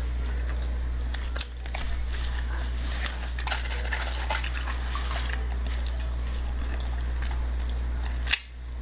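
Close-up eating sounds of someone biting and chewing corn, with scattered short clicks, over a steady low hum.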